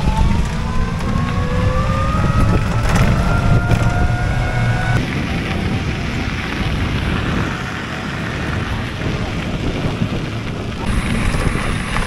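Electric rickshaw under way: its motor whines and rises slowly in pitch as it gathers speed for the first five seconds or so, over a steady rumble of road and wind noise that carries on after the whine stops.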